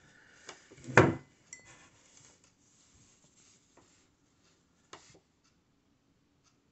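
Crafting handling sounds: a sharp knock about a second in and a lighter click about five seconds in, among faint rustles and ticks, as a yarn needle and yarn are worked through a crocheted piece in a whip stitch.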